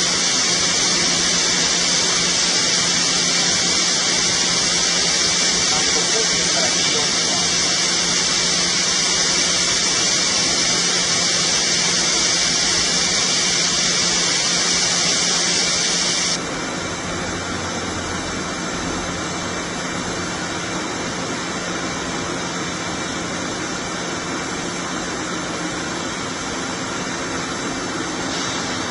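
Steady hissing machine noise, brighter and louder for about the first sixteen seconds, then dropping suddenly to a quieter, steady hiss.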